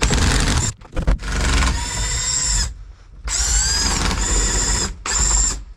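A power drill run in four bursts of a second or so, its whine rising in pitch as it spins up. It is undoing the rusted body-to-floor-pan bolts of a VW Beetle.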